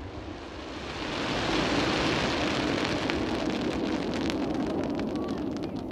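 Fireworks crackling: a dense hiss of crackling stars swells up about a second in, with many sharp little pops scattered through it as the glitter falls, and slowly fades near the end.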